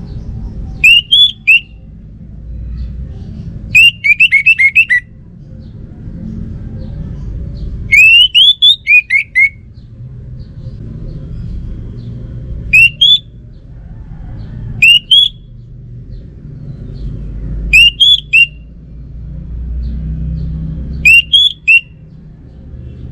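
Orange-headed thrush singing: seven short phrases of quick, rising whistled notes, each under about a second and a few seconds apart, over a steady low rumble.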